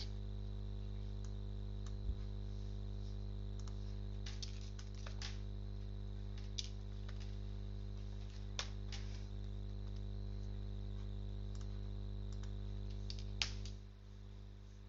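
Scattered computer keyboard key presses and mouse clicks, about ten sharp clicks at uneven intervals, over a steady electrical hum picked up by the microphone.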